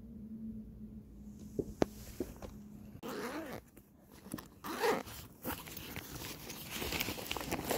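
Black nylon backpack being unzipped and rummaged through: a zipper pulling open and fabric rustling and scraping as a hand digs inside, starting about three seconds in after a few light clicks.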